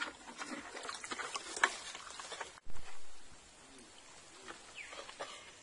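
Wet rustling and small splashes from hands sorting fish and frogs out of a mosquito net into a bucket, made of many quick clicks and crackles. A dull thump comes about halfway through.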